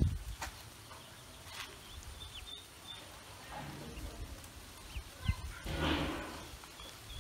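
Ducklings giving short, high peeps now and then as they swim. A low thump comes a little after five seconds, and a short rush of noise follows around six seconds.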